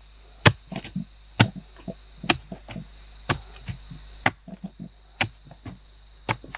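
A bamboo digging pole jabbed into packed earth at the bottom of a pit, striking sharply about once a second with soil scraping and crumbling between strikes.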